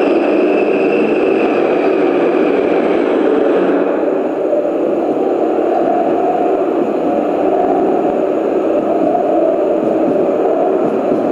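Engine noise running steadily and loudly, its tone changing about four seconds in.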